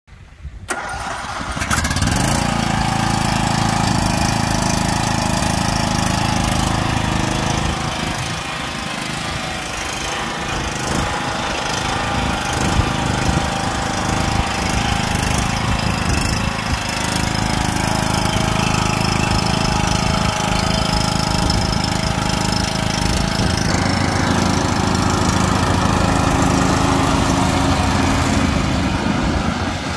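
John Deere LA115 riding lawn mower's engine running steadily as the mower drives across the lawn. The sound builds up over the first second or two, then holds an even pitch.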